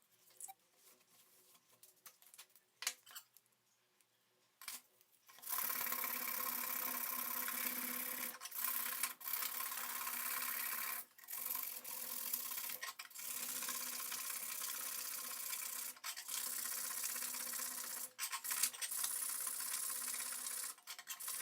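Light handling clicks, then about five seconds in a steady rasping rub starts: something abrasive worked against a blender part in long passes of a few seconds, with brief breaks between them.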